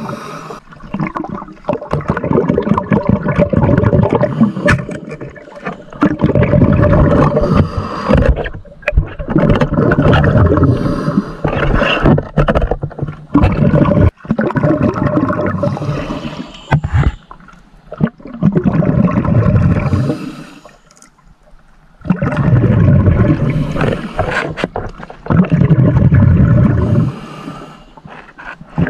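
Water gurgling and sloshing in loud surges of a few seconds each, with short lulls between them.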